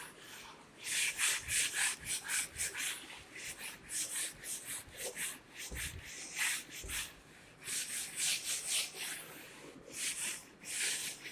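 Whiteboard duster rubbing across a whiteboard in quick back-and-forth strokes, in several spells with short pauses between them.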